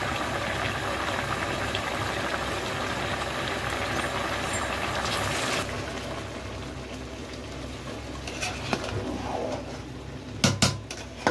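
Rice and chicken broth boiling hard in a large metal pot, a dense bubbling hiss that cuts off suddenly about five and a half seconds in. Quieter bubbling follows as the water cooks down into the rice, then near the end a metal spoon clicks and scrapes against the pot as the rice is stirred.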